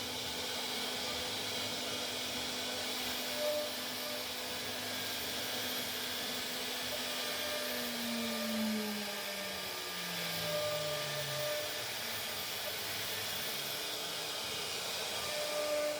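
CNC router spindle running as it cuts plastic: a steady hiss with a thin, very high whine. Partway through, a lower tone steps down in pitch over a few seconds.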